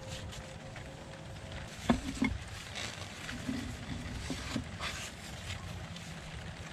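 Wet mud being pressed and smeared by gloved hands onto the stones of a primitive oven: two sharp slaps about two seconds in, then scattered softer squelches, over a low steady background rumble.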